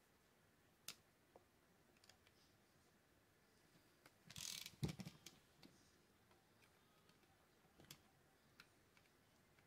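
Faint, sparse clicks and taps of a screwdriver and small metal parts against a fishing reel during reassembly. About halfway through there is a brief rustle and then a sharper knock, the loudest sound.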